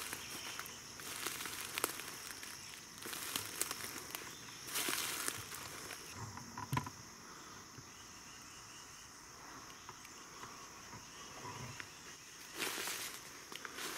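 Boots crunching through dry leaf litter in uneven bursts of footsteps, with a lull of several seconds in the middle and another burst near the end, over a steady high insect drone.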